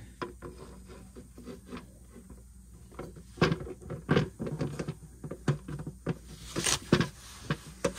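Light knocks, taps and scrapes as a new transmission pan with built-in filter is lifted and fitted up against the underside of an 8-speed ZF automatic transmission. It is quiet for the first few seconds, and the knocks come thick and irregular from about three and a half seconds in.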